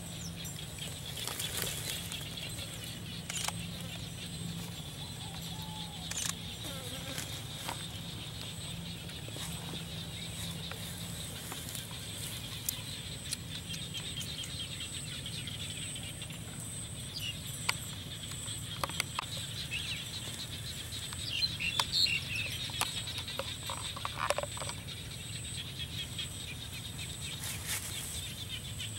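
Rural outdoor background with a steady high hiss, a few scattered clicks and knocks, and short bird chirps, most of them about three quarters of the way in.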